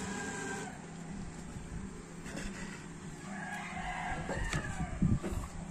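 Hands handling food on a plate at a table, with short knocks and a thump about five seconds in. A drawn-out call rises and falls in the background a little past the middle.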